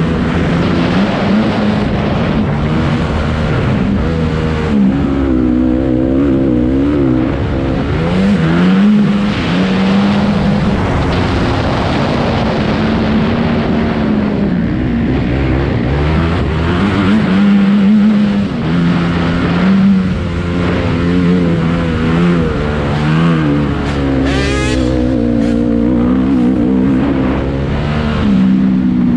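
Honda CRF250R's single-cylinder four-stroke engine at race pace, its pitch climbing and dropping over and over as it is revved out, shifted and throttled back through the corners.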